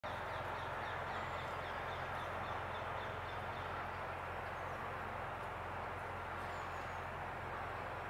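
Steady background hum of distant city traffic, with a faint run of small high bird calls during the first few seconds.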